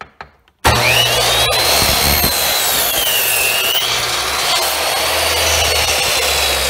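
Delta ShopMaster chop saw switched on about half a second in, its motor running loud with a high whine. The whine sags in pitch around the middle as the blade is brought down through a 2x6 board, then climbs back.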